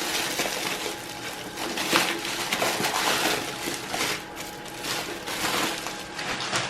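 Plastic bubble wrap crinkling and rustling as a boxed item is pulled out of it, with many irregular crackles.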